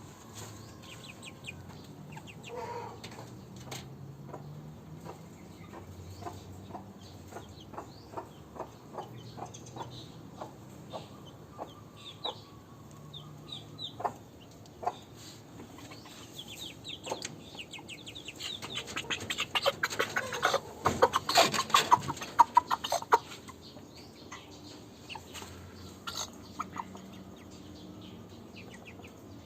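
Aseel chickens clucking, with scattered short sharp clicks throughout and a louder, dense flurry of them around twenty seconds in.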